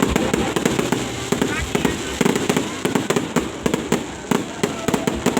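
Fireworks exploding in a rapid, irregular barrage of sharp bangs and pops.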